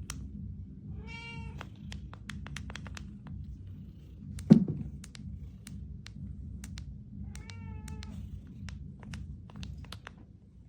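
A cat meowing twice, short calls about a second in and again about seven seconds in, with one loud thump in between over a steady low hum and scattered small clicks.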